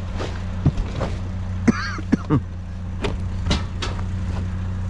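Vehicle engine idling steadily, with a few sharp knocks and a brief squeak about two seconds in.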